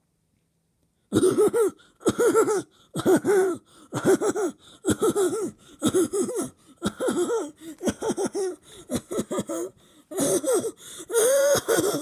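A person making a deliberately annoying vocal noise: short wheezy bursts that waver up and down in pitch, about one a second, starting about a second in.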